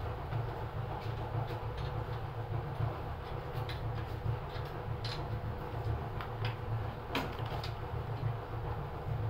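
A steady low mechanical rumble, like a running engine, with a few sharp metallic clicks and knocks over the middle of the stretch as the grinder's V-belt drive is worked on by hand.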